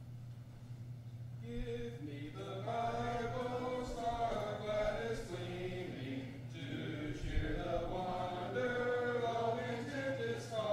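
A congregation singing a hymn a cappella, with several voices and no instruments, as is the custom in Churches of Christ. The singing begins about a second and a half in.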